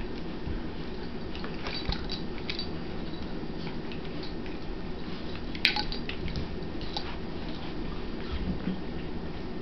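Two dogs play-wrestling over a toy: scattered light clicks and clinks over a steady low hum, with one sharper click a little past halfway.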